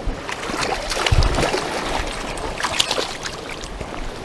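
Flowing river water with scattered small splashes and knocks, and a low thump about a second in.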